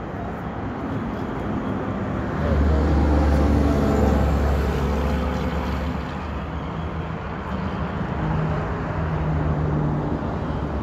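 Semi-truck diesel engine running with a steady low hum. It grows louder about two and a half seconds in, eases off after about six seconds, and swells again near the end.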